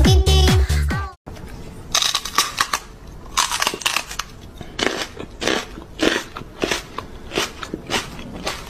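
Electronic dance music that stops abruptly about a second in, followed by a string of irregular, short smacking kisses from a person's lips pressed against a small dog.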